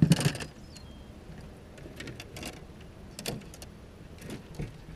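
Fishing rods and baitcasting reels knocking and clattering against each other and the boat's rod storage as they are handled. There is a loud cluster of sharp knocks at the start, then scattered single knocks.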